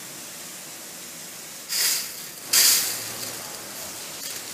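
Fire hose nozzle spraying water in two short, loud hissing bursts about a second apart, over a steady hiss.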